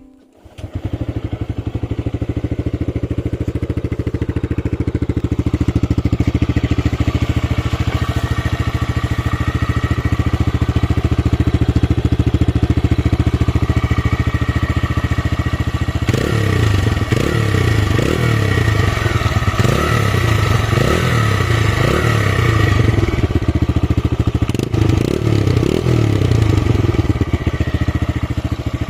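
TVS Raider 125 single-cylinder engine starts and idles steadily. From a little past halfway the throttle is blipped repeatedly, the revs rising and falling again and again, with a short return to idle before a last few blips near the end.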